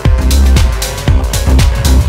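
Loud electronic dance music with deep bass and a steady beat.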